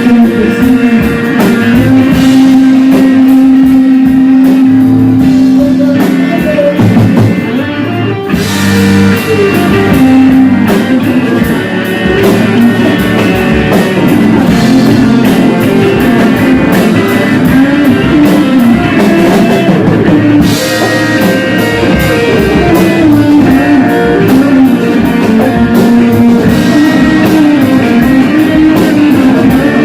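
Loud rock music with guitar and drum kit playing.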